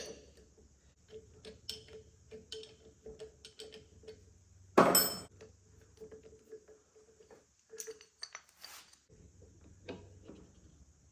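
Irregular small metallic clinks and taps of a 10mm socket and hand tools being worked on metal, with one louder metal clatter about five seconds in.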